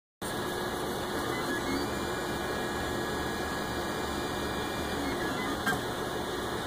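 ORD Bot 3D printer printing: its stepper motors hum in short, changing tones as the print head and bed shuttle back and forth, over a steady hiss, with one light click about five and a half seconds in.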